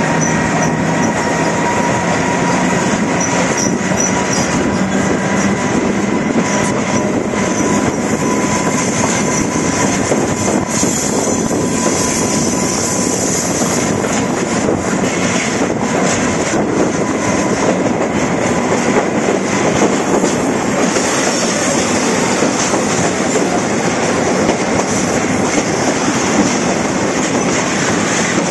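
Freight train wheels rolling on the rails at close range: a steady loud rumble and clatter, with a faint thin squeal running through it.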